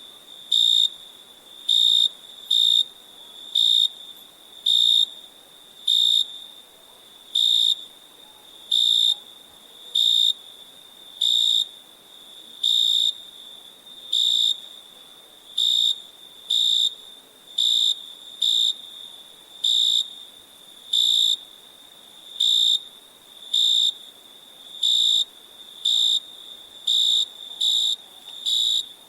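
Crickets chirping: one near cricket gives short, high chirps about once a second, slightly irregular in spacing, over a fainter steady trill from others at the same pitch.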